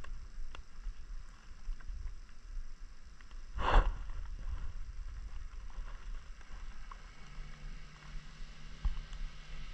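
Honda motorbike riding along a dirt track: a steady low rumble of road and wind, with one short loud rush about four seconds in. A steady engine hum comes up from about seven seconds.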